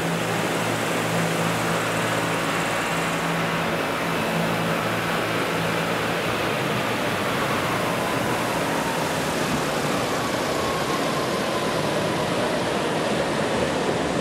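Tandem rotors of large scale model CH-47 Chinook helicopters turning on the ground, with a regular low beat that fades out about halfway through and a faint falling whine, over a steady roar of hall noise.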